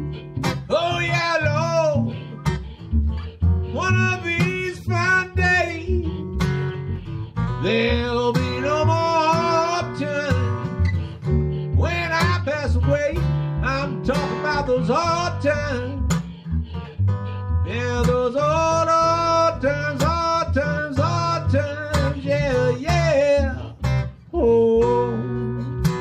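Acoustic guitar strumming a slow blues with a washtub bass holding the low notes, under a lead melody played in phrases with bends and vibrato.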